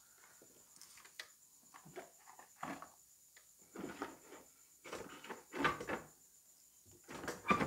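Things being handled and moved about on a cluttered workbench: a string of irregular knocks, clatters and rustles, loudest about two-thirds of the way in and again near the end.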